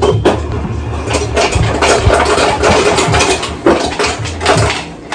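Close rustling and knocking of the phone being handled and moved, with clattering around a stainless-steel pot, over a steady low hum.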